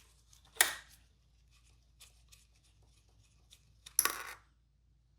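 Two sharp metallic clinks with a brief ring, about three and a half seconds apart, with faint small ticks between: small metal tools or parts knocking on a hard surface during work on an outboard's carburetor.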